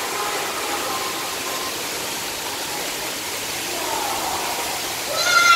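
Steady rushing background hiss, with a high voice briefly calling out near the end.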